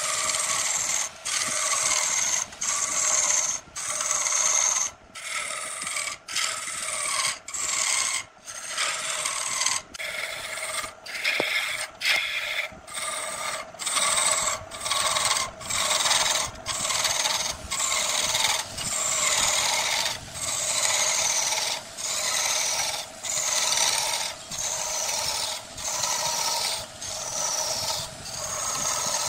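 Wood being turned on a lathe: a cutting tool scraping against the spinning workpiece in stretches about a second long, broken by short gaps, each with a high whine that falls in pitch.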